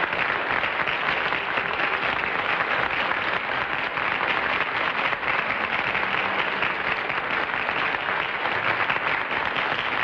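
Studio audience applauding steadily, a dense even clapping that neither builds nor fades.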